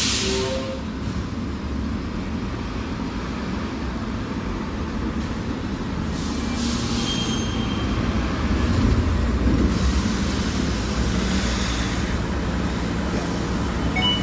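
City buses running at a busway station: a steady low engine rumble that grows louder about nine seconds in, with short bursts of air hiss, typical of bus air brakes, near the start and about six seconds in.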